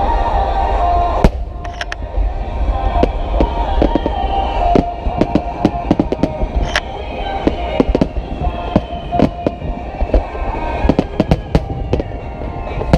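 Aerial fireworks bursting in rapid succession: many sharp cracks and bangs over a deep rumble, coming thicker from about a third of the way in. Music plays underneath.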